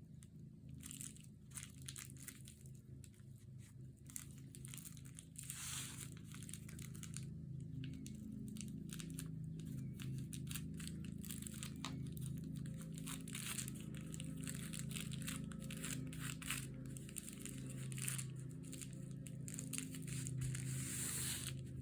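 Paper and plastic mailer crinkling and rustling in irregular handling noises as glued paper is worked onto a squishy notebook cover, busier from about five seconds in, over a steady low hum.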